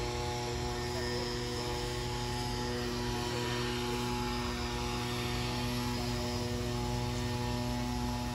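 Steady droning hum of a motor or small engine running at a constant speed, with a clear low pitch.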